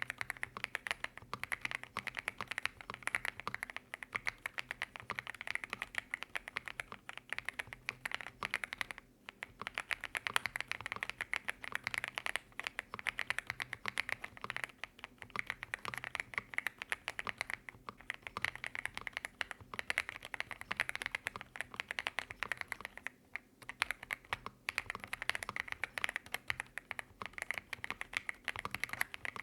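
Fast, continuous typing on a Monka A75 aluminum-bodied mechanical keyboard with Snow Leopard linear switches, stock and unmodded. The keystrokes pause briefly about nine seconds in and again about twenty-three seconds in.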